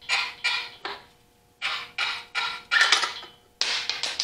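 Ratchet wrench clicking in short metallic bursts, about ten in four seconds, as it is worked back and forth on a nut welded onto a broken bolt.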